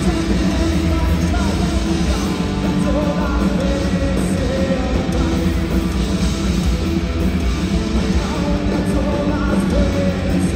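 Punk rock band playing live at full volume, with a singer's voice over the band.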